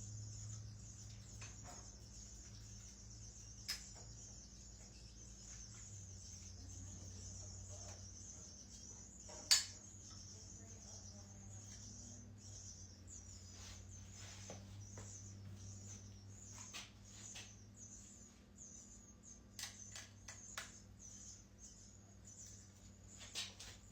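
Faint steady low hum under a rapid, high chittering pattern, with a few sharp clicks, the loudest about nine and a half seconds in and a cluster near the end.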